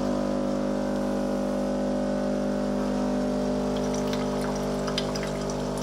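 Bosch Tassimo coffee maker's water pump running nonstop with a steady hum. It keeps pumping the tank's water out of the machine, a fault the owner later traced to an internal pipe that had come adrift.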